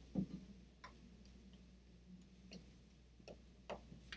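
A handful of faint, irregular clicks and taps over a steady low hum, with a soft low thump just at the start.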